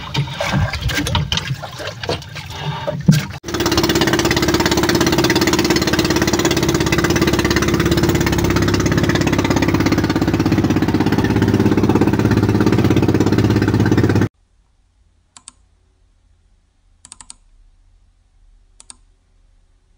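After a few seconds of irregular knocks and handling noise, a boat engine runs steadily and loudly for about ten seconds, then stops abruptly. A few faint short clicks follow.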